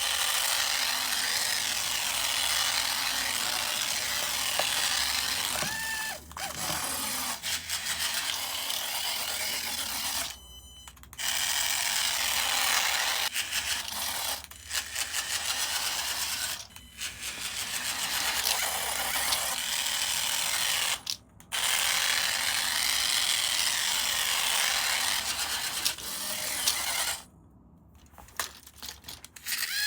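Small electric motor and plastic gears of a battery-powered toy running, stopping briefly several times and starting again.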